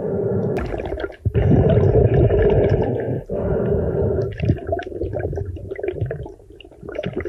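A snorkeler breathing through the tube, heard through an underwater camera: hollow, rushing breaths a second or two long, one after another, with water noise around them.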